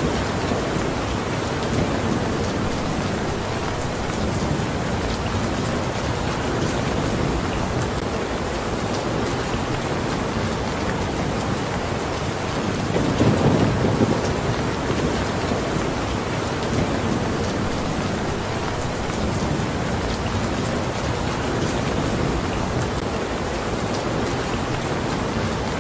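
Steady rain falling, a continuous even hiss of drops. About halfway through, a low rumble swells briefly and fades.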